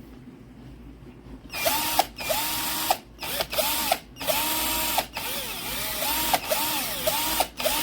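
Cordless drill motor triggered in a series of short bursts starting about a second and a half in, its whine rising and falling in pitch as it speeds up and slows down between pulses. The owner says the drill is not supposed to do that and that it smells smoky, a sign of the motor overheating or failing.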